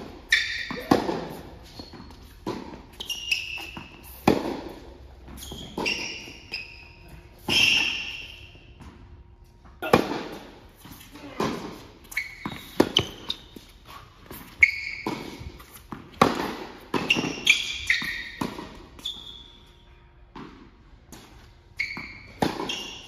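Indoor tennis rally on a hard court: sharp pops of racket strings striking the ball and the ball bouncing off the court, about once a second, each echoing in the hall, with short high sneaker squeaks between shots.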